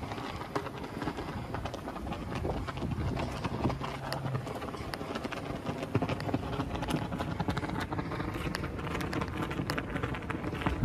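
Footsteps of a person walking across an overlook deck and stone-paved plaza, an irregular run of steps and scuffs over a low rumble.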